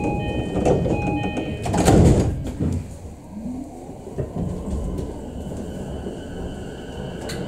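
E233 series train's electronic door chime sounding in a quick repeating pattern, then the sliding doors moving with a loud rush and thud about two seconds in. A steady low hum of the standing train follows.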